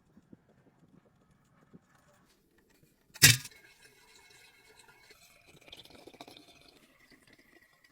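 A single sharp click or knock about three seconds in, followed by faint lingering tones and quiet handling noises.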